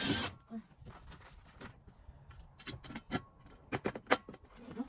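A cordless drill running stops just after the start. A scatter of light clicks and knocks follows as the plastic storage box panels and the drill are handled, with a sharp click a little after 4 seconds.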